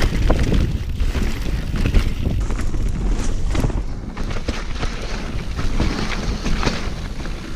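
Mountain bike ridden fast down a rough, muddy trail: wind rumbles over the action camera's microphone, over a steady run of sharp knocks and clatter as the tyres, chain and suspension take the bumps.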